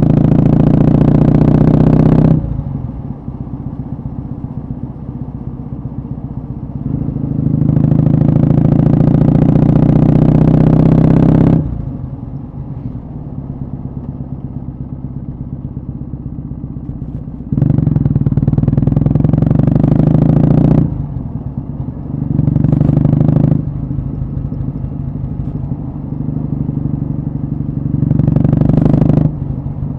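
Kawasaki W650's air-cooled vertical-twin engine breathing through a short stainless Cabton-type muffler, ridden on the road. The exhaust gets louder in several spells under throttle, about five times, and drops back to a quieter run in between.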